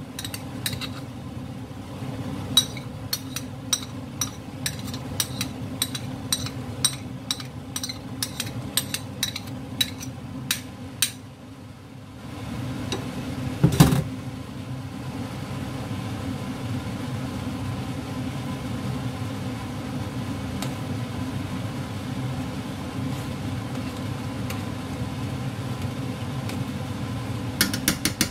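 A spoon clinking against a small ceramic bowl and an enamel pot as sauce is scraped into the pot: many quick sharp clicks for about the first ten seconds, then one louder knock about 14 s in. A steady low hum runs underneath. A few clicks of the spoon tapping the pot rim come near the end.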